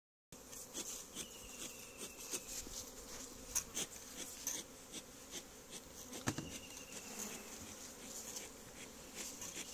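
Honey bees buzzing steadily around an opened wooden box hive. Scattered clicks and knocks of wooden hive frames being handled, with a sharper knock about six seconds in.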